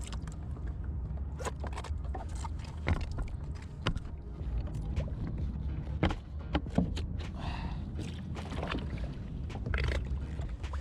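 Scattered knocks, clicks and scrapes of gear being handled aboard a kayak, over a steady low rumble.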